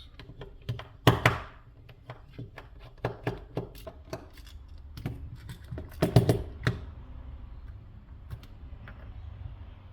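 Small plastic sensor case being unscrewed and pried apart by hand: scattered clicks and knocks of a screwdriver and plastic parts, with two louder clunks, about a second in and about six seconds in.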